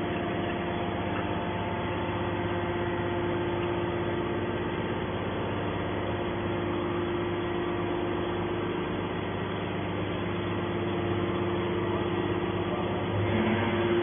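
Hydraulic scrap metal baler's power unit running with a steady, even hum while the ejection ram pushes a compressed bale of scrap out of the press chamber. It gets a little louder near the end.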